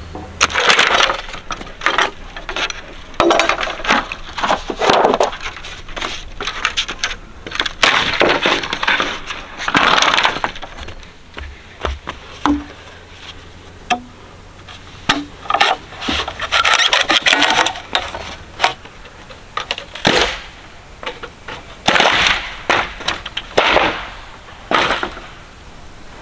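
Green bamboo being cut and split with a large knife: irregular chops and splitting cracks in short bursts.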